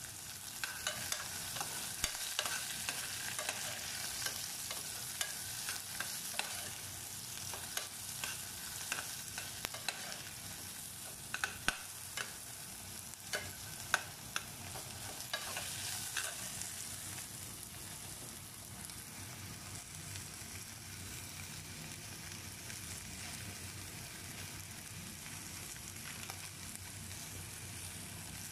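Garlic cloves, green chillies, onion and cumin seeds sizzling in oil in an aluminium pot, with a steel spoon scraping and clinking against the pot as they are stirred through the first half. Later the clinks thin out and the frying sizzle goes on steadily.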